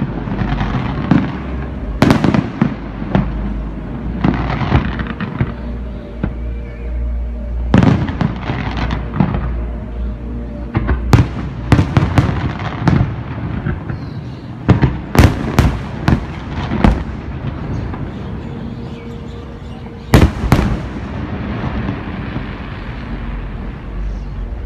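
Aerial fireworks display: repeated loud shell-burst booms over continuous crackling. The booms cluster about two seconds in and about eight seconds in, come in a quick run from about eleven to seventeen seconds, and end with a last big boom about twenty seconds in.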